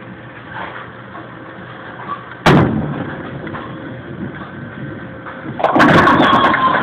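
A bowling ball lands on the lane with a loud thud about two and a half seconds in and rolls down it with a low rumble. About five and a half seconds in it hits the pins: a loud clatter of many pins knocked down together, lasting about a second.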